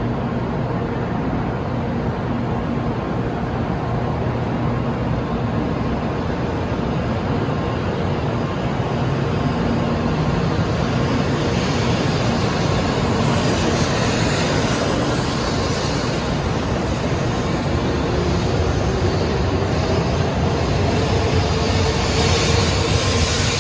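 N700-series Shinkansen train pulling out of the platform and gathering speed as its cars pass: a steady running noise, with a faint whine climbing in pitch near the end as it accelerates.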